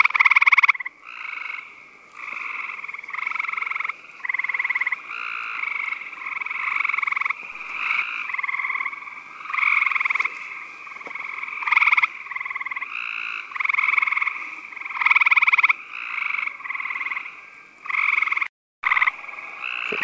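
Gray treefrog calling: loud, pulsed trills, each about half a second to a second long, repeated roughly once a second with short gaps.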